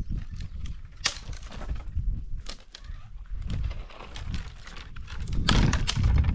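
Dry branches being pulled about and broken up for firewood on gravel: a string of sharp crackles and snaps of brittle wood, with the crunch of footsteps on stones, growing louder near the end.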